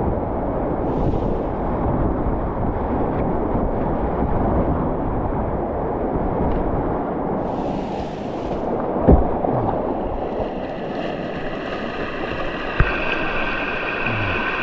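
Rushing river water with wind on the microphone, a steady wash of noise. A sharp knock comes about nine seconds in and a smaller one near the end, and a steady high-pitched tone joins in near the end.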